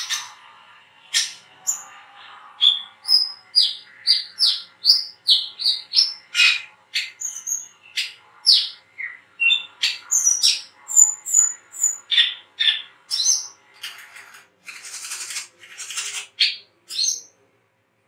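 Brown-throated sunbird (kolibri kelapa) giving a fast run of short, sharp, high chirping notes, about two to three a second, many sliding down in pitch. Two harsher, raspy calls come near the end before it stops.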